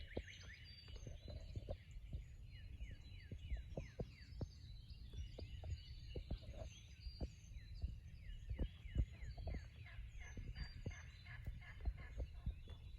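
Faint morning birdsong: repeated short chirps and sweeping notes from small birds. There is a low wind rumble and scattered soft knocks of the camera being handled.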